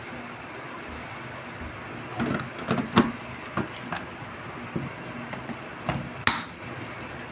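Plastic clicks and knocks as a clear action-camera mount is handled and fitted at the chin of a motorcycle helmet. They come as a string of short, sharp hits from about two seconds in, the loudest near three seconds and a slightly longer one near the end, over a steady hiss.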